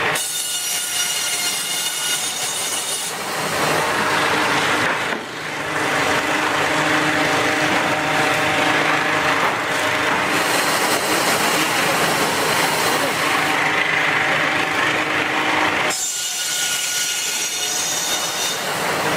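Power saws cutting through wood, a motor running steadily under load, in several short segments that change abruptly every few seconds.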